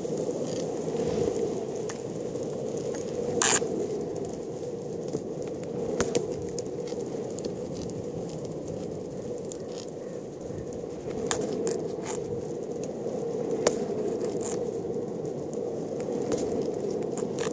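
Longboard wheels rolling over an asphalt path: a steady rolling noise with scattered sharp clicks and ticks, the strongest about three and a half seconds in.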